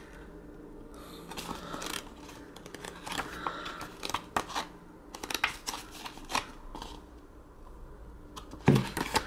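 Pages of a glossy paperback booklet being turned by hand: short, irregular paper rustles and flicks, with a louder handling bump near the end.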